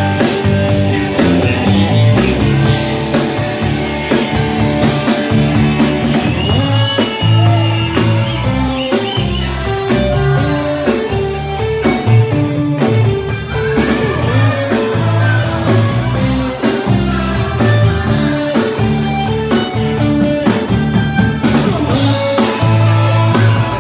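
Live band playing loud amplified music with a steady beat: electric bass and drum kit.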